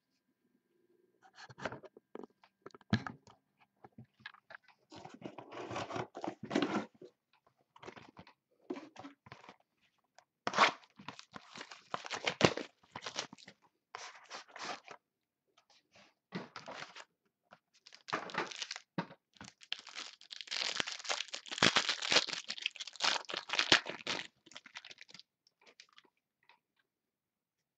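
Plastic wrapping on a sealed box of football trading cards and its packs being torn open and crinkled, in irregular bursts of crackling and tearing that grow busiest near the end.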